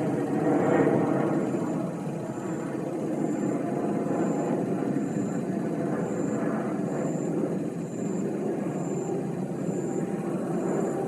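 Boeing 777 freighter jet passing overhead: a steady broad rumble of its engines, loudest about a second in. A faint high chirp repeats about every two-thirds of a second over it.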